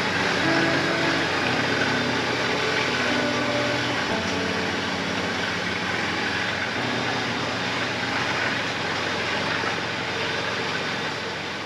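Ferry under way: its engines keep up a steady drone under a constant rushing hiss.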